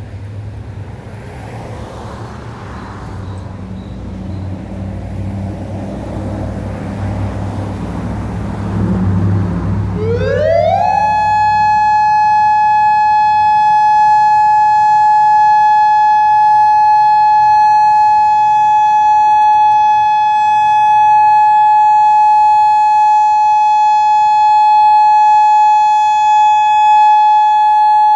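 Federal Signal Modulator electronic outdoor warning siren sounding a steady alert tone for a monthly storm warning system test. About ten seconds in it glides quickly up in pitch and then holds one loud, high, steady tone. Before it there is a low rumble that grows louder.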